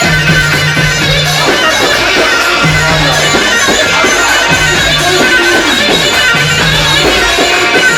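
Loud wedding band music: a reedy, nasal wind-style lead melody over a bass line of held notes that repeats every second or so.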